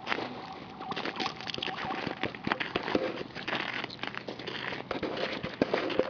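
Pebbles clicking and crunching as stones are picked up from a stony shore: a dense, irregular run of small sharp clicks and crackles.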